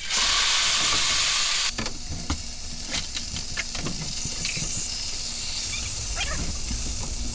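T-bone steak frying as it is laid into very hot oil in a frying pan on a high flame: a loud burst of sizzling that settles after about two seconds into a steady sizzle. Metal tongs click lightly against the pan as the steak is moved.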